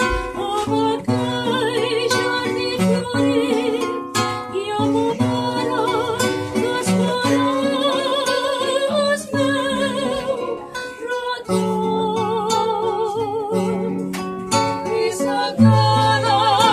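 Several women's voices singing a habanera together, with a wavering vibrato, over an acoustic guitar accompaniment.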